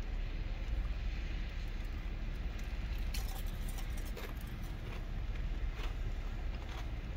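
A few sharp crunches of ice being bitten and chewed, mostly in the middle stretch, over a steady low rumble.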